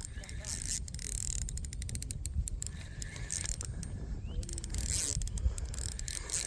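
Fishing reel clicking in quick runs of ticks, densest about a second and a half in and again around five seconds in.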